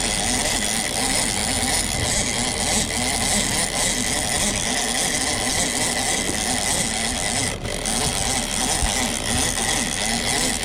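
Boat's outboard motor running steadily, with a constant buzzing hum and hiss.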